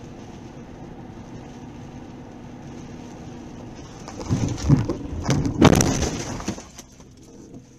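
Steady car cabin and road rumble, then about four seconds in a series of loud bangs and crunching lasting a couple of seconds, the loudest near six seconds, as the car crashes; it dies back to a low rumble near the end.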